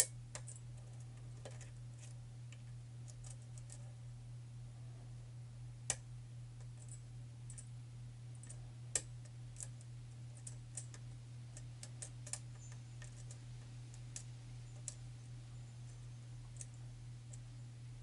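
Light metallic clicks and ticks of a lock pick and tension wrench working the pins of a pin-tumbler challenge lock with a tight paracentric keyway, scattered irregularly, with a few sharper clicks. A steady low hum runs underneath.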